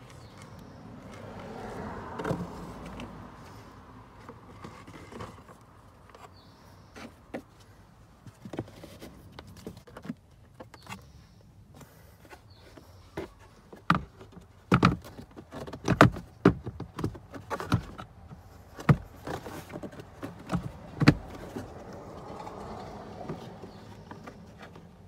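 A cabin air filter sliding and rustling into its plastic housing behind a Subaru Outback's glovebox, then a run of sharp plastic clicks and knocks, the loudest about two thirds of the way through, as the housing and glovebox are fitted back into place.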